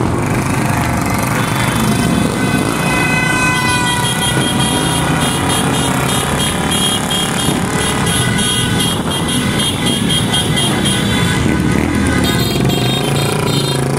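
A group of motorcycles riding together, engines running, with horns sounding over them for most of the stretch.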